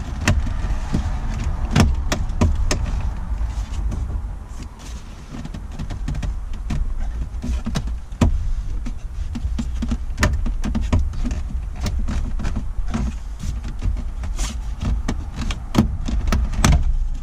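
Hard plastic dashboard trim being handled and worked at, with scattered clicks and knocks over a low rumble.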